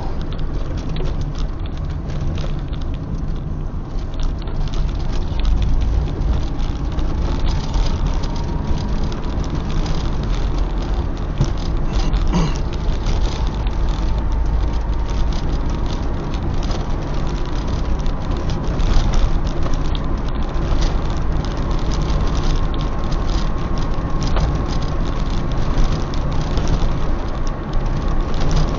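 Car driving along a patched road: steady engine and road noise with frequent small rattles and knocks.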